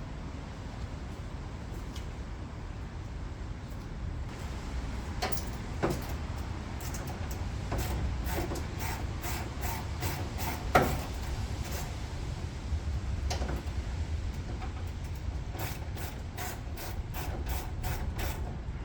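Hand tools working loose the bolts of a car's front bash bar: runs of evenly spaced ratchet clicks and a few sharp metal knocks, the loudest about 11 seconds in, over a steady low hum.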